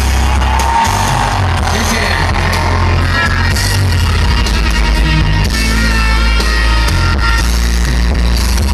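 Live rock band music played loud through large concert loudspeakers, with a heavy, booming bass, heard from close to the speakers.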